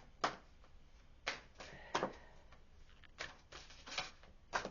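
Tarot cards being handled and laid down: a series of short, irregular snaps and taps, about six in four and a half seconds.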